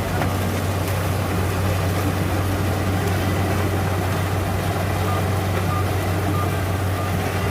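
Engine of a mechanical corn reaper running steadily with an even, low hum while harvesting corn.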